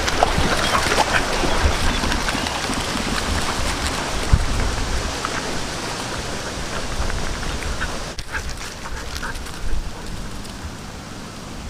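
Dogs splashing and paddling in river water, with wind rumbling on the microphone.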